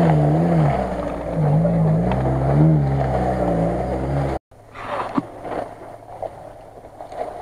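An off-road SUV's engine revving up and falling back several times as it works through mud. After an abrupt cut it is much quieter, with a few scattered knocks and clicks.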